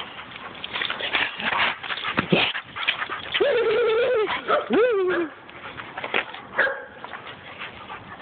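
A dog whines: one held cry about three and a half seconds in, then a shorter one that rises and falls in pitch. Rustling and scuffing noises come before the cries.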